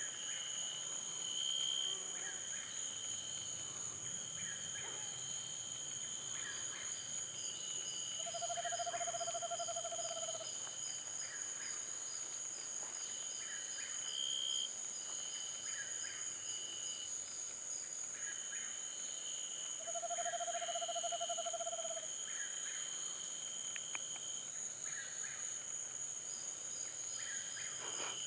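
Eastern screech owl giving its monotone trill twice, about eight seconds in and again about twenty seconds in, each a steady, even trill of about two seconds. Under it runs a constant high-pitched insect chorus.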